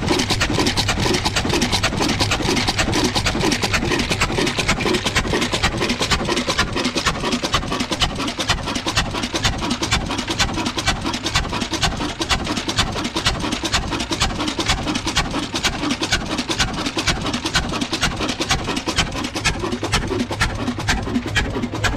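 Old stationary diesel engine running steadily on a tubewell, with a rapid, even beat that does not change.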